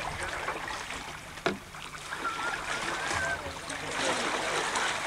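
Wooden paddles dipping and splashing in the water as a dug-out log canoe is paddled along. A single sharp knock sounds about one and a half seconds in.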